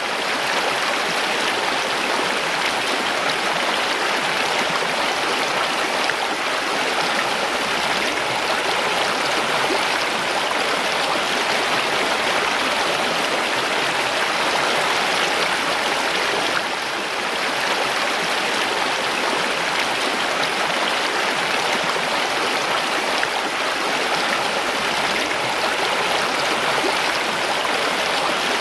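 Mountain stream rushing steadily over rocks: a continuous, even splashing of running water.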